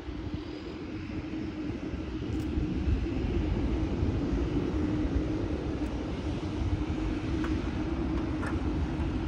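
Boeing 787 Dreamliner's jet engines running at taxi power as it rolls past: a steady low rumble with a held hum, growing louder over the first few seconds and then staying level.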